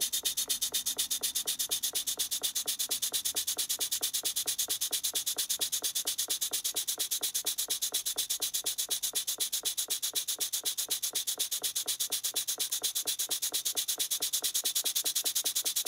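Cotswold Heritage Isis model vertical single-cylinder steam engine running steadily, its exhaust giving a fast, even beat of short hissing puffs.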